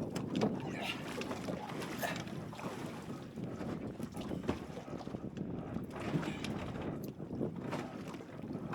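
Strong wind rumbling on the camera microphone, with water splashing and slapping around a small sailing dinghy under way; a few short splashes or knocks stand out.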